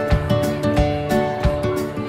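Background music: an acoustic guitar piece with held notes over a regular beat.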